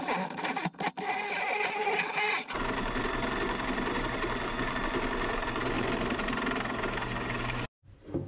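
Electric drills boring out the ball joint rivets on a steel suspension upper control arm. The first seconds are short bursts with brief stops; then about two and a half seconds in a drill press motor runs steadily while it cuts, stopping suddenly near the end.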